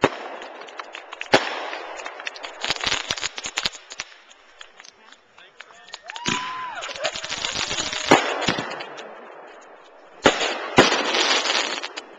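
Aerial fireworks bursting: sharp bangs followed by dense crackling, in three clusters a few seconds apart, with two bangs in quick succession near the end.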